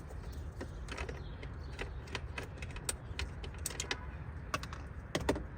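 Irregular light clicks and taps of hand tools and plastic parts being worked in a car's centre console, over a steady low rumble.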